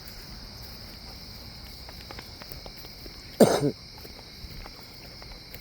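A man coughs once, about three and a half seconds in: a short, hoarse cough that falls in pitch, with a brief second catch. The cough is brought on by wood smoke from burning woodstoves.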